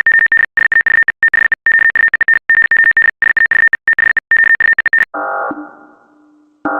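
Electronic emergency alert signal: a high beep chopped rapidly and irregularly on and off for about five seconds. It then gives way to a chime that rings and fades, and a second chime strikes near the end.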